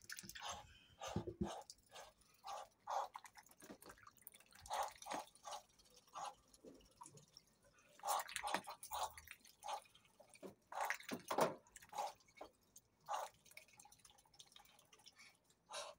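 Muscovy duck feeding from a tub of chopped kale in water: its bill dabbling and snapping in the water, giving short wet clicks, drips and splashes at irregular intervals.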